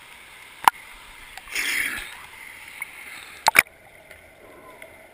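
Pool water splashing and sloshing against an action camera's waterproof housing at the surface, with a sharp knock about half a second in, a swell of splashing around a second and a half in, and a sharp double knock two-thirds of the way through. After that the camera is underwater and the sound turns quieter and muffled.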